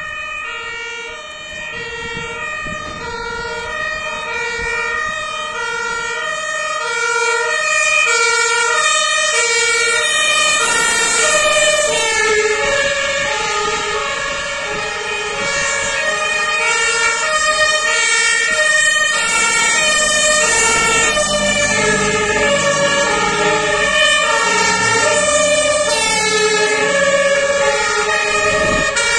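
Two-tone German fire engine sirens (Martinshorn) sounding their alternating high-low notes, growing louder as the vehicles approach. From about twelve seconds in, a second siren out of step with the first overlaps it, and a heavy truck engine rumble comes in during the second half.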